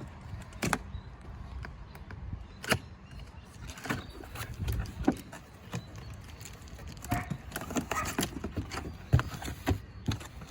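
Cardboard boxes and packaging being handled and unpacked: scattered sharp knocks and clicks with rustling.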